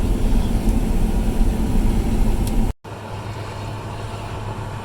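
Steady engine drone heard inside a combine harvester's cab. About three seconds in it cuts off abruptly and gives way to a quieter, steady engine hum from a truck cab.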